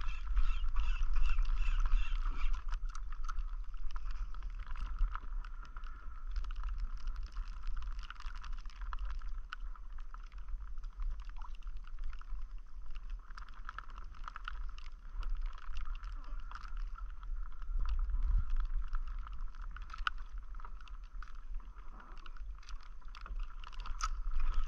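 Wind buffeting the microphone over water lapping against a kayak's hull, with scattered light clicks and a quick run of ticks in the first two seconds.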